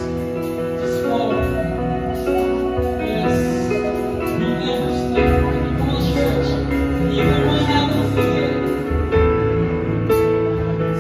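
Live church worship band playing an instrumental passage, with electric and acoustic guitars holding sustained chords over bass, which change every second or two. It was recorded on a phone.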